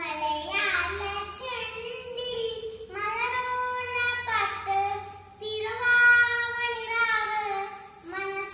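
A young girl singing a Malayalam song solo and unaccompanied, in long held notes with short breaths between phrases.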